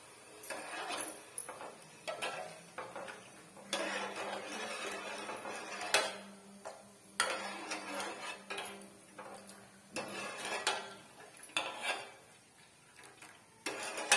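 Steel ladle stirring sugar syrup in a metal pot, clinking and scraping against the pot in irregular strokes, while the syrup is checked to see whether the sugar has dissolved.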